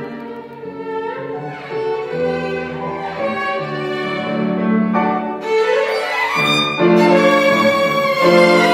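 Three violins playing a tango with piano accompaniment, with sliding notes between pitches, growing louder about seven seconds in.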